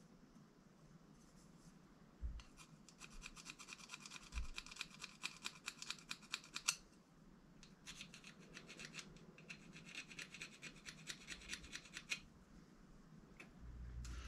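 Quick back-and-forth scrubbing on a surface, several strokes a second, in two bouts with a short pause between them, as a part is cleaned.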